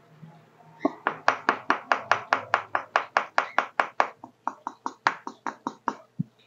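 Rapid, even knocking on a wooden stingless-bee (mandaçaia) hive box, about six knocks a second. It slows after a few seconds and stops near the end. The knocking is done to stir up the bees so that foragers leave the box.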